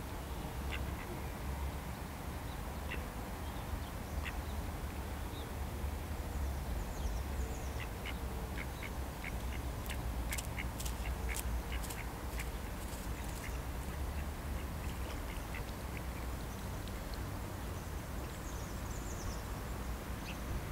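Male mallard duck quacking, over a steady low rumble, with a cluster of sharp clicks about ten to twelve seconds in.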